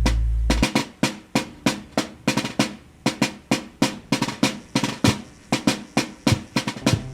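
Drum beats in a steady, quick rhythm, about three strikes a second, taking over from a held low musical note that stops within the first second.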